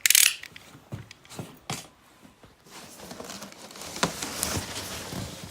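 Cardboard box and packing material being handled: a sharp rustling burst at the start, a few light knocks, then a couple of seconds of steady rustling and scraping of cardboard and packing.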